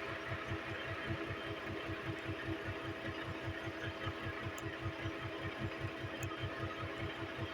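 Bulldozer's diesel engine running steadily, a low even throb of about six pulses a second with a constant hum above it.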